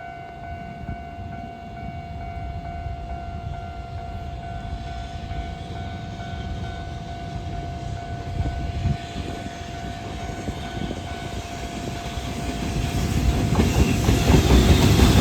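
Approaching freight train behind an EH200 electric locomotive: a low rumble that grows steadily louder, strongest near the end. Under it, a level-crossing warning alarm sounds as a steady ringing tone until it is covered near the end.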